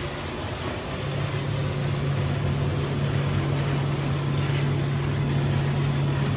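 Diesel engine of a farm vehicle running while driving, a steady drone that picks up and gets louder about a second in, then holds.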